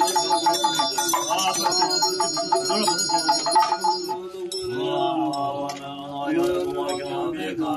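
Tibetan Buddhist monks chanting a ritual liturgy in long held notes, with a lower voice joining about halfway through. A small ritual hand bell rings over the chant in the first half.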